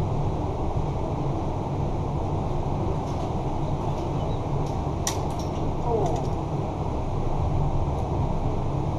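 Steady rush of storm-overflow water pouring from a pipe into a concrete pool, a low, even noise, with a few light clicks about three and five seconds in.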